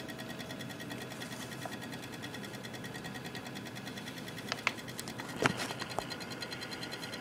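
Cooler Master Real Power Pro 550 W computer power supply running with a fast, steady ticking. It gives a few louder, sharper clicks about two-thirds of the way through.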